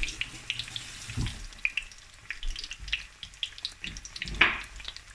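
Coconut-breaded shrimp deep-frying in hot oil: a steady bubbling and crackling, with a few dull bumps, the loudest near the end.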